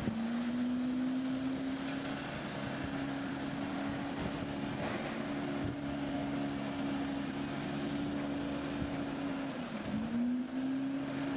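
An engine running steadily at constant speed, its pitch dropping briefly near the end and then picking back up.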